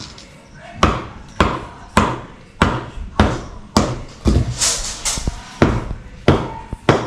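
Hammer striking a concrete block again and again, sharp knocks about every half second: a mason splitting the block to size.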